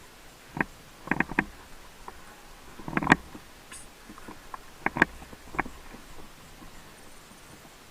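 A string of irregular sharp clicks and knocks: one about half a second in, three quick ones just after a second, the loudest cluster about three seconds in, and a few more around five seconds.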